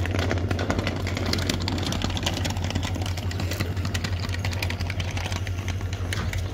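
EMD diesel locomotive idling while the train stands, a steady low engine hum with scattered light clicks over it.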